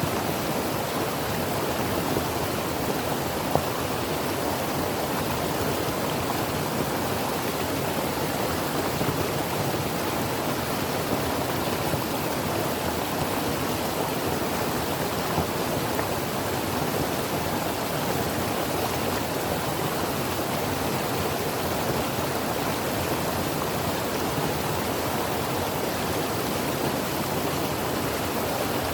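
Creek water flowing steadily over rocks, an even rushing with small splashes and gurgles.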